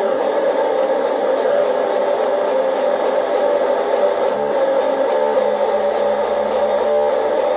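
Electric guitar strummed hard, a dense sustained chord sound with a steady pulse of about four or five strokes a second.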